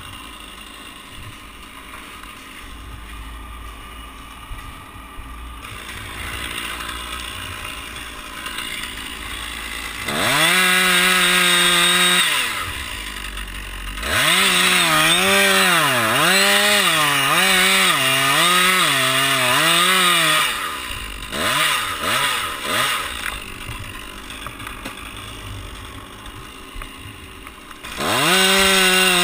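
Stihl two-stroke chainsaw idling, then run up to full throttle about a third of the way in. It saws into the pine trunk, its pitch dipping and recovering about six times under load, then gives a few short throttle blips and a final full-throttle rev near the end.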